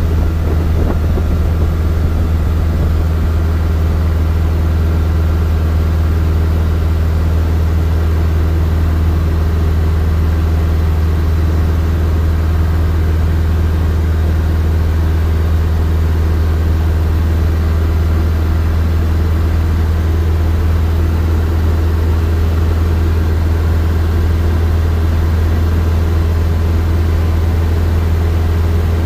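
Steady drone of a Robin DR400 light aircraft's piston engine and propeller in flight, heard from inside the cabin.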